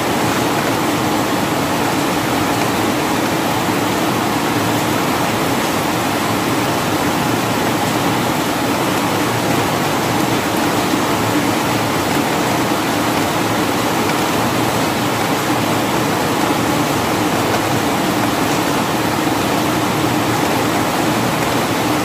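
Steady rain falling on garden plants, an even downpour hiss with no breaks.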